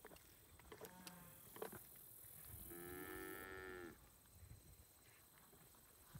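A cow moos: a short, low call about a second in, then a longer moo of a little over a second around three seconds in. Both are faint.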